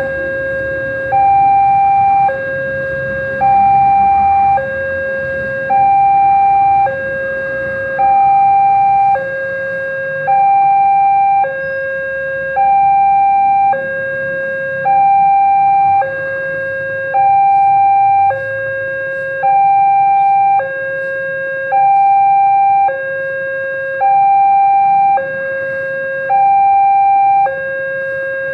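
Railway level-crossing warning alarm sounding with the barriers down: an electronic two-tone signal alternating steadily between a higher and a lower tone, each held about a second. It warns that a train is approaching.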